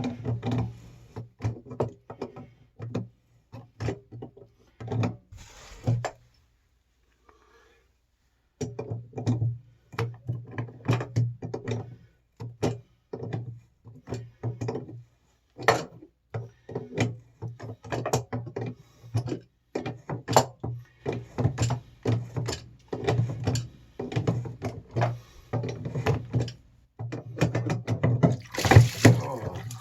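Background music with a steady beat, dropping out for about two seconds around six seconds in. Near the end a hissing rush of water noise comes up.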